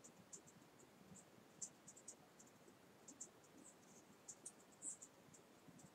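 Near silence, with faint, irregular high-pitched ticks scattered throughout.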